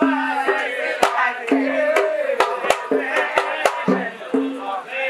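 Hadrami zarbadi song: men's voices singing a religious poem to small hand drums and a larger drum. The drums strike sharply several times a second, many strokes ringing briefly with a low note.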